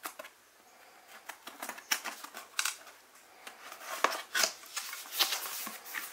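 Packing tape on a cardboard box being slit with a small knife: a run of short scraping, rasping cuts and light knocks on the box, loudest from about four seconds in.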